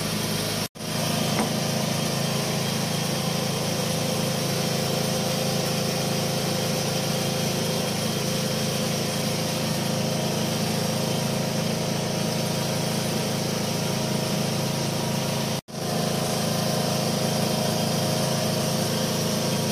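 Foton dump truck's diesel engine idling steadily, heard close up at the chassis. The sound cuts out for an instant twice.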